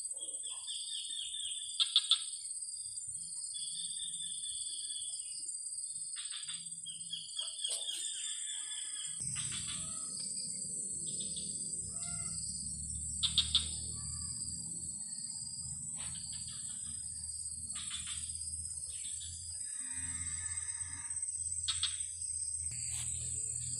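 Insect chorus: a steady high-pitched drone, with repeated trains of chirping in the first eight seconds or so and a few short sharp clicks. A low rumble joins about nine seconds in.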